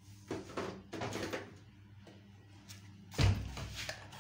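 Kitchen handling noises: a few soft knocks and rustles, then one heavy thump about three seconds in.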